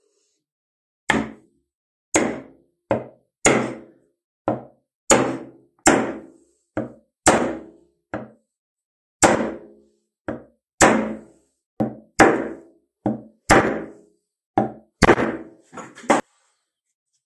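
About twenty solid knocks, roughly one a second, each dying away quickly, as the axe head is driven down onto its wooden handle to seat it; the last few come quicker and lighter.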